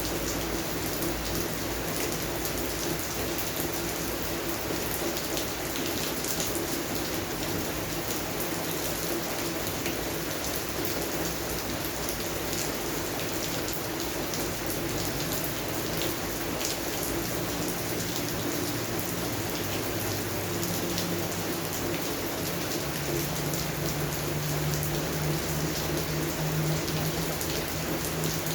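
Steady rain falling on a garden: an even hiss with many separate drops tapping close by.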